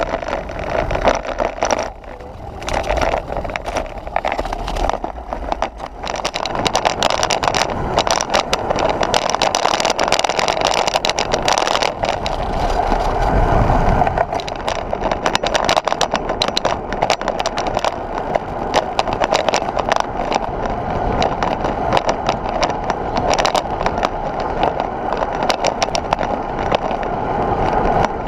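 Wind and tyre noise picked up by an action camera mounted on a road bike riding along a tarmac lane, a steady rush with frequent irregular rattles and knocks from road vibration through the mount.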